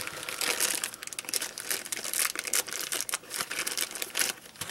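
Thin plastic packaging bag crinkling and crackling as it is torn open and handled to get the clips out, in irregular bursts that stop abruptly near the end.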